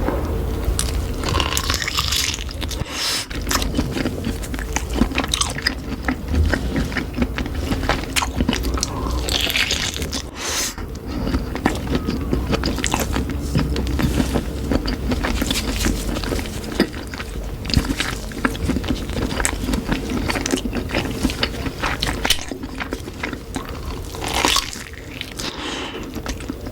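Close-miked biting and chewing of a large sausage: many short, wet smacks and crunchy bites in quick succession, over a steady low hum.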